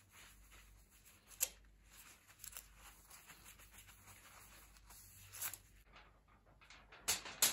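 Soft rubbing and rustling of a cloth wiping a sheet of aluminium foil on a table, with a few brief sharper sounds, then louder crinkling of the foil near the end as the sheet is handled.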